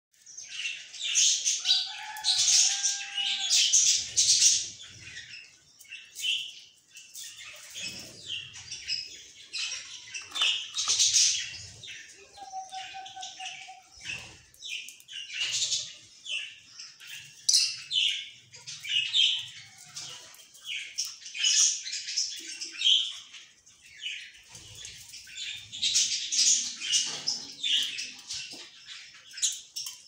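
A group of Fischer's lovebirds chattering with rapid, shrill chirps and squeaks that come in bursts one after another, with barely a pause.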